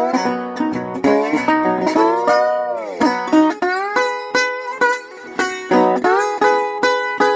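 Music played on a plucked string instrument: a quick run of picked notes, with a long sliding bend down in pitch about two to three seconds in.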